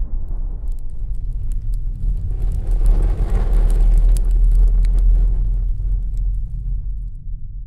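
A deep rumbling sound effect that swells to its loudest mid-way and then fades, with faint crackles on top, used as a transition under a title card.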